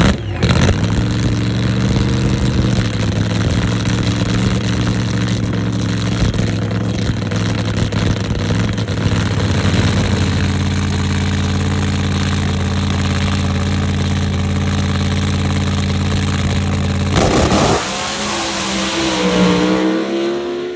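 Supercharged alcohol-burning Pro Mod sand drag car's V8 running loud and steady at idle. About 17 seconds in it revs, and near the end its pitch climbs as the car pulls away down the sand strip.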